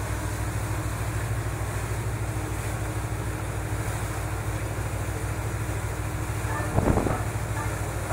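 Passenger boat's engines running with a steady low throb under the rush of wind on the microphone and the wash of the sea, with a brief louder sound about seven seconds in.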